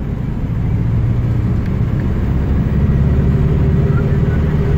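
Engine of a moving road vehicle, a steady low hum that grows louder about a second in, with a faint steady whine joining around three seconds in.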